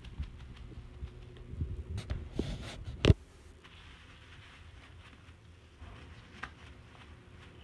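Rustling and scattered knocks close to the microphone, with one sharp knock about three seconds in, then quieter with a faint tick.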